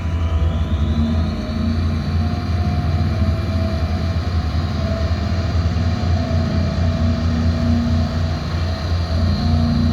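Diesel engine of heavy road-construction machinery running steadily with a deep hum. A high-pitched whine rises during the first second, then holds steady alongside it.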